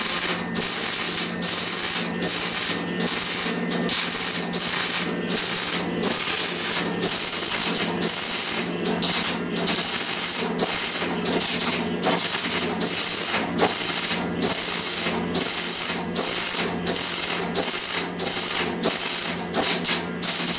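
Electric arc welding on a steel hatchet head: a continuous crackling, frying hiss from the arc, broken by brief gaps every half second to a second, over a steady low hum.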